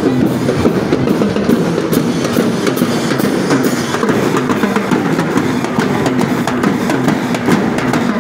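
Marching drum corps of children playing snare drums in dense, continuous drumming, with pitched band music underneath.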